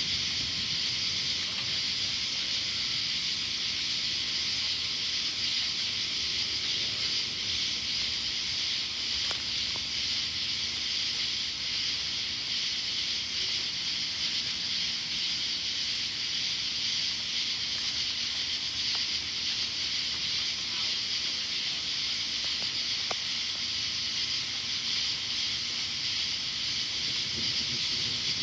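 A steady, shrill chorus of night insects, with a higher pulsing call repeating about every second and a quarter above it.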